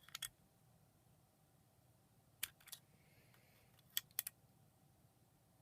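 Faint, sharp clicks in small clusters, two near the start, two about two and a half seconds in and three about four seconds in, from a small screwdriver working the screws of a Joyetech eVic VTC Mini box mod's case down snug.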